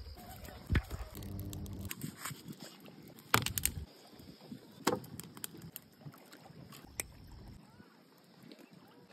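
Scattered knocks and clatter from hands at work: firewood set down on rocks and a whole piglet handled on a wooden picnic table, over a low outdoor hiss. The loudest knocks come in a quick cluster a little past the middle.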